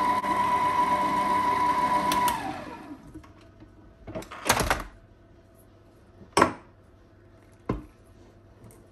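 Electric mixer beating cake batter on low speed, then switched off about two and a half seconds in, its whine falling in pitch as it runs down. A few separate sharp knocks follow.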